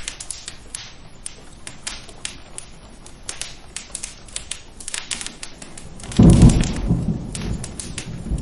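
Rain with many sharp crackling pops of a wood fire, and a loud clap of thunder about six seconds in that rumbles on, fading slowly.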